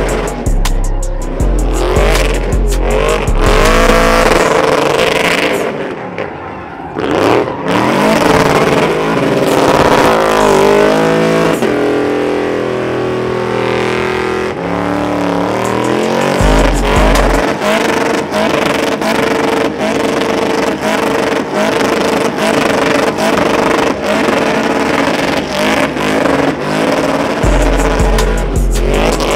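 Pickup truck doing a burnout: the engine is held at high revs, rising and falling, while the rear tyres spin and smoke. Music with a heavy bass beat plays over it; the beat drops out for much of the middle.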